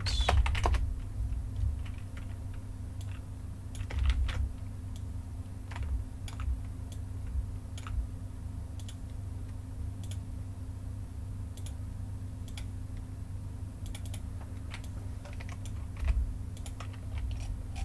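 Computer keyboard keys tapped in scattered, irregular clicks, over a low steady hum.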